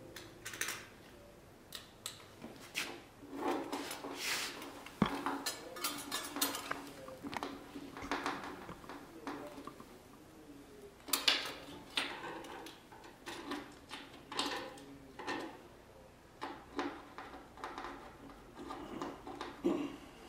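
Small stainless steel screws and a metal faceplate being handled and fitted with a hex key: irregular light metal clinks, clicks and scrapes, with a couple of sharper knocks.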